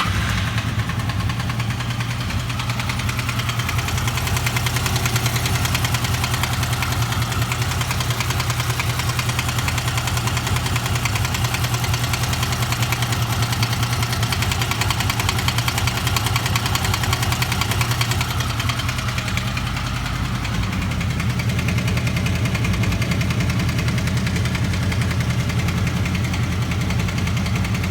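Honda VFR800's V4 engine idling just after a cold start, with the knock that the owner hears from it when it is cold. The idle note changes slightly about twenty seconds in, then runs on steadily.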